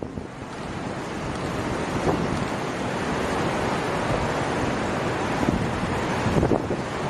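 Steady rush of wind on the microphone mixed with the wash of choppy sea waves.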